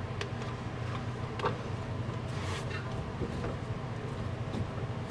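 Scattered light clicks and metal knocks of hand tools working on a car's rear subframe and suspension, a few strokes spread over several seconds, over a steady low hum.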